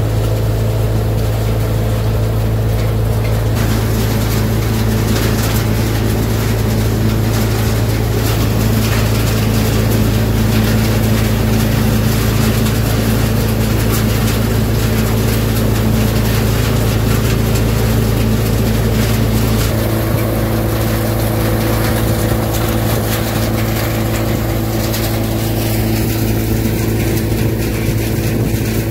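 Tractor-driven multi-crop side-basket thresher running under load while threshing groundnuts: a loud, steady mechanical hum with a strong low drone. The low tones shift slightly about two-thirds of the way through.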